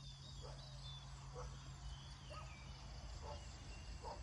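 Short animal calls repeating about once a second, with thin high chirps above them and a steady low rumble underneath.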